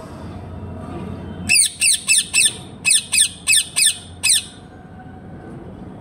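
Parrot calling in a quick run of about nine short, loud, high calls, each dropping in pitch. The calls come in two bursts, four and then five, starting about a second and a half in.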